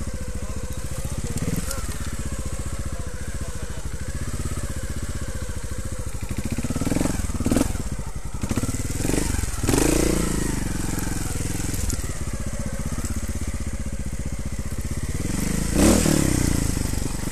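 Trials motorcycle engine running at low revs through a slow section, blipped up briefly several times, with the loudest blips around the middle and near the end. Tyres crunch over dirt and gravel under it.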